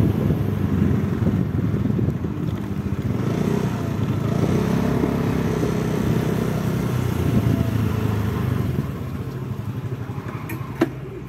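Motorcycle engine running while riding, with tyre and road noise. It eases off and goes quieter at about nine seconds as the bike slows and stops. A single sharp click comes about half a second before the end.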